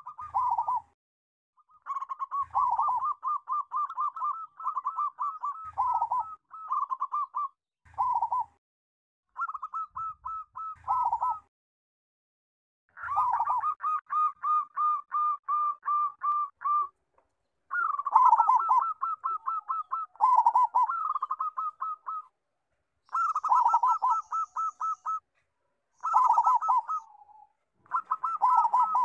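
Zebra dove (perkutut) singing its rapid cooing song in a big, full voice: about ten phrases of quick repeated rolling notes, each one to four seconds long, with short pauses between them.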